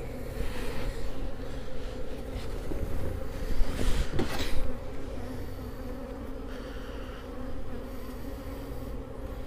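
Honeybees buzzing in a steady hum over an open hive box of frames. About four seconds in there is a louder handling rustle with a sharp knock.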